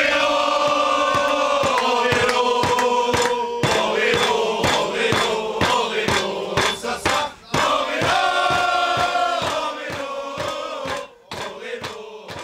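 A group of men singing together in unison, holding long notes over a steady beat. The singing dies down near the end.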